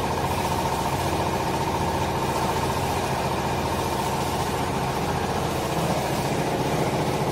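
A machine running steadily in the background: an even, engine-like hum with a fine steady pulse that does not change.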